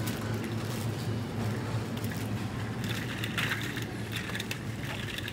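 Grocery store background: a steady low hum, with rustling and handling noise for a second or so about three seconds in.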